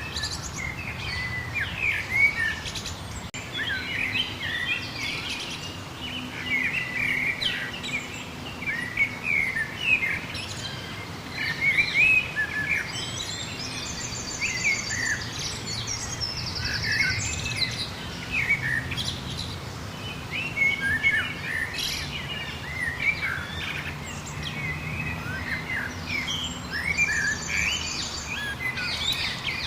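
A dawn-chorus-like mix of many songbirds chirping and whistling continuously, with no single song standing out. A fast, high-pitched trill of rapidly repeated notes cuts in twice about halfway through and once more near the end. A faint steady low background hum sits beneath the birds.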